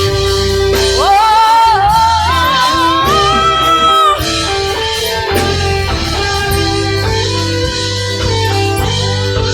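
Live worship band music with guitar and bass under a wordless sung line that slides up about a second in and is held with vibrato until about four seconds in, after which the band plays on.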